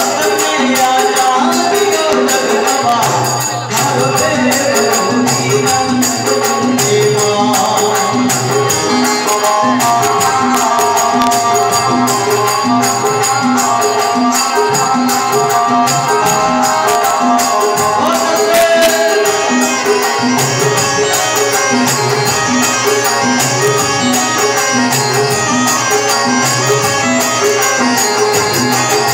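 Live Rajasthani devotional bhajan music: harmonium and a Roland Juno keyboard hold steady notes over a steady dholak beat, with a continuous metallic jingle of small hand percussion.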